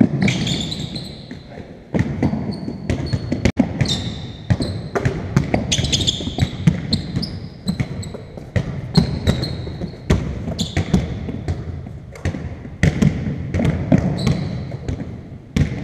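Basketballs bouncing repeatedly on a hardwood sports-hall floor during dribbling drills, mixed with short high squeaks of trainers on the boards, echoing in the large hall.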